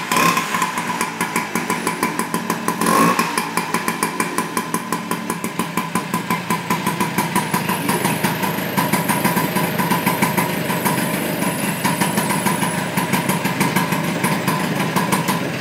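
Vespa 150GS's single-cylinder two-stroke engine idling with a steady, even pulse. The revs are blipped briefly near the start and again about three seconds in, and it is shut off at the very end.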